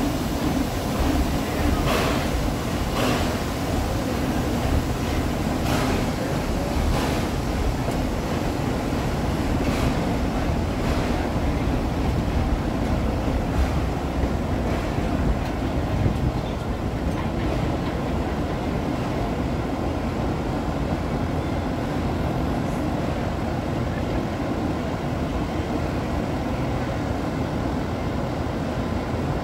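Crown Metal Products narrow-gauge 4-4-0 replica steam locomotive pulling its train of open coaches past and away, with sharp steam chuffs about a second apart in the first half that fade out as the train moves off. A steady rushing noise lies underneath throughout.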